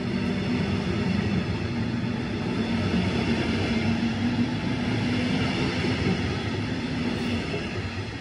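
DB Regio double-deck regional train pulling out of the station, its coaches rolling past with a steady rumble and a low hum. The sound fades near the end as the last coach clears the platform.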